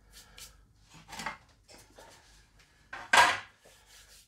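Hands brushed and rubbed together to knock cake crumbs off the palms: a few short dry swishes, the loudest about three seconds in.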